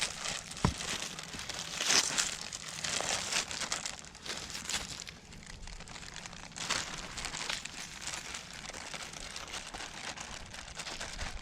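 Packaging around mail-order live tree seedlings crinkling and rustling as it is handled and unwrapped, in irregular bursts with a sharp click under a second in.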